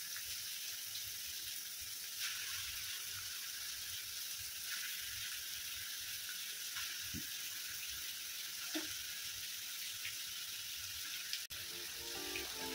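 Onion-tomato masala sizzling steadily in a kadai as marinated chicken pieces are tipped in by hand, with a few soft knocks. Music comes in near the end.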